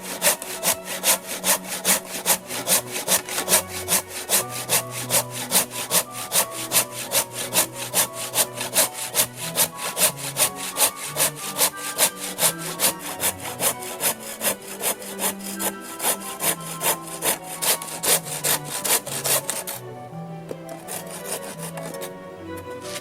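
Hand saw cutting through wood in steady back-and-forth strokes, about two to three a second, stopping about twenty seconds in.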